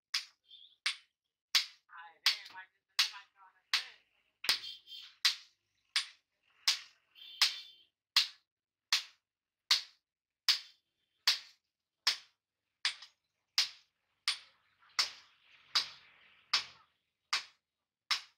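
Blacksmith's hand hammer striking a red-hot chopper blade on an anvil, forging it out. The blows fall in a steady rhythm, about four every three seconds, each a sharp metallic strike with a short ring.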